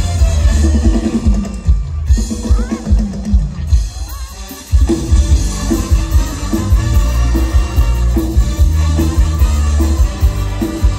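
Loud live mor lam band music over a big concert PA, driven by a heavy kick-drum beat. About four seconds in the music thins briefly, then the full band and beat come back in with a hard hit.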